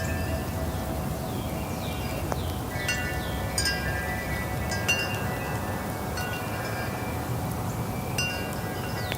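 Metal wind chimes struck irregularly by the breeze, clusters of ringing tones overlapping and fading, over a steady low rush of wind.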